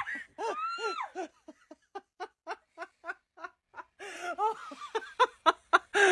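A person laughing hard in quick, short, evenly spaced bursts of about four a second. The laughter fades for a moment, then grows louder again near the end.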